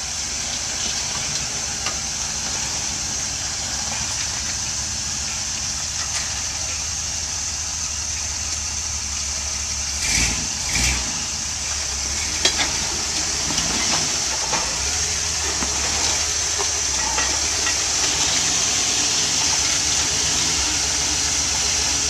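Jeep CJ engine running at low, crawling speed as the Jeep climbs over boulders, under a steady high hiss. Two short thumps about ten seconds in, and a few light knocks after.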